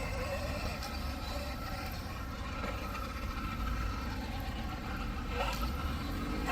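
Losi Super Rock Rey 1/6-scale electric RC truck driving, its motor giving a faint wavering whine over a steady low rumble.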